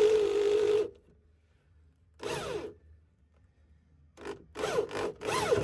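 Electric drill boring through the car's sheet-metal floor panel. It runs steadily for about the first second, then comes in short bursts, once a little over two seconds in and several times near the end, with the motor's pitch falling in each burst.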